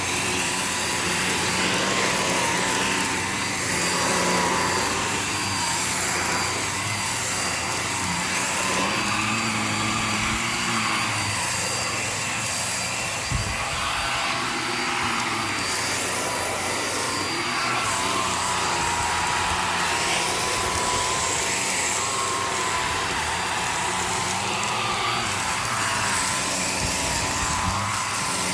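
Hoover React Powered Reach Premier vacuum running with its powered stair tool on thick stair carpet, a steady loud suction hiss with a motor whine that wavers up and down in pitch as the tool is worked over the carpet.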